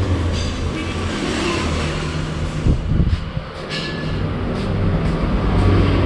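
A motor vehicle engine running steadily, a low drone.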